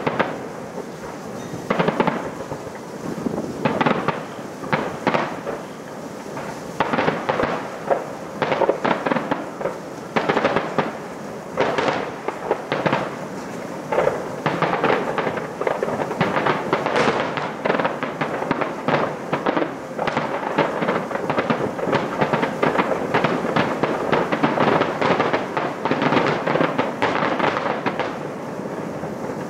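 Fireworks display: a long run of irregular bangs from aerial shell bursts, with crackling, coming thicker and faster from about halfway through.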